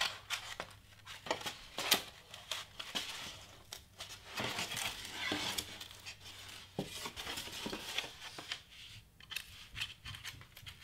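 Craft knife with a dull blade slicing through foam board: scratchy, crunching scrapes broken by irregular sharp clicks as the blade drags and snags through the board, with the board handled in the middle.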